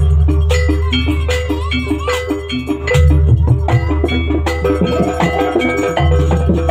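Banyuwangi barong ensemble music: struck metal percussion in a steady beat and a melodic line over deep, sustained low tones that swell in again about three and six seconds in.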